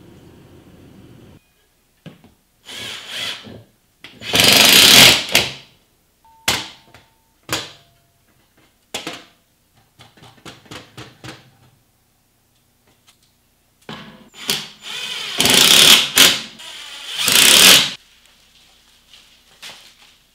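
Cordless drill running in several short bursts, the longest about four seconds in and again from about fifteen to eighteen seconds in, driving screws through the backdrop bracket into the wooden ceiling joist.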